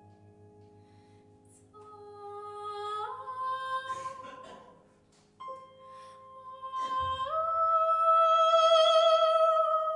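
Soprano singing long held notes in a contemporary classical art song, the line stepping upward in pitch; after a short pause about five seconds in, she rises to a loud sustained high note held to the end.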